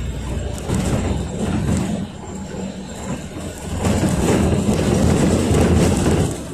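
Inside a moving NefAZ 5299 city bus: the rumble of its Mercedes-Benz M906 LAG natural-gas engine and road noise, with rapid clicks and rattles from the body. It grows louder about four seconds in and eases just before the end.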